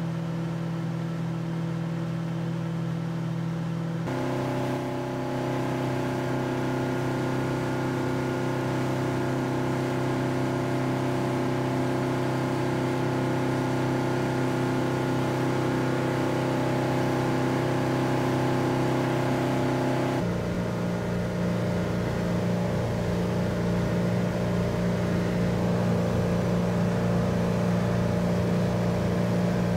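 Motorboat engine running steadily at cruising speed as the boat runs across open water. The drone changes abruptly twice, about 4 and 20 seconds in.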